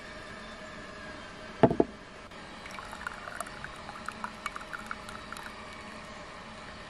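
A single clunk on the wooden table about a second and a half in, then a thin stream of hot water from a samovar's tap trickling into a cut-glass tea glass, with small irregular splashes for a few seconds.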